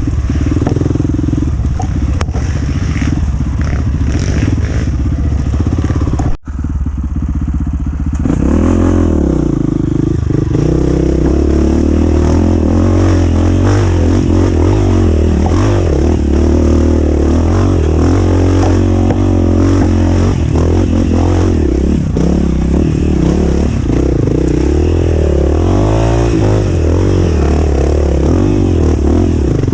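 Dirt bike engine running under load, revving up and down as the throttle is worked, its pitch rising and falling. The sound cuts out for an instant about six seconds in.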